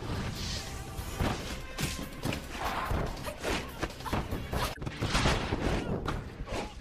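Fight-scene film soundtrack: background music with a rapid run of punch and kick impact effects, sharp hits and thuds.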